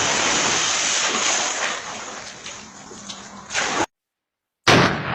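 Steady rushing water noise that fades over about three seconds, then a short loud burst, about a second of dead silence, and a new loud rush starting near the end.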